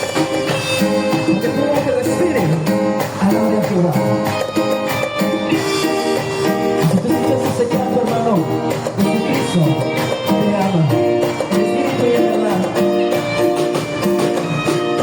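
Live band playing Latin dance music, with a low bass line that climbs and falls, plucked guitar and steady percussion.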